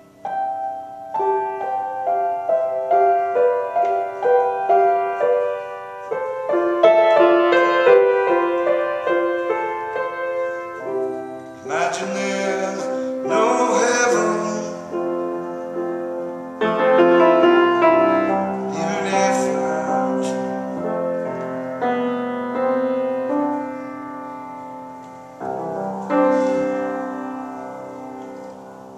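Grand piano played solo: a slow run of chords and melody notes, ending on a chord struck near the end that is left to ring and die away.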